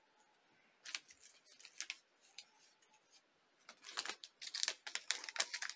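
Paper and foil packets of a rapid antigen test kit rustling and crinkling as they are handled on a table: a few scattered crackles and taps, a lull, then a dense run of crinkling from about four seconds in.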